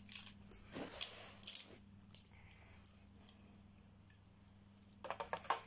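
Light plastic clicks and rustles of Lego pieces being handled, in a few short bursts and a quick cluster of clicks near the end, over a faint steady low hum.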